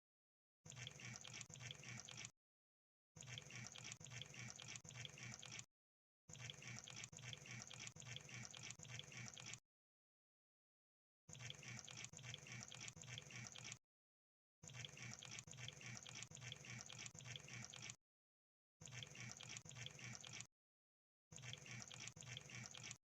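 Crab sound effect: faint, fast crackling clicks in seven bursts of one to three and a half seconds each, with short gaps of dead silence between them.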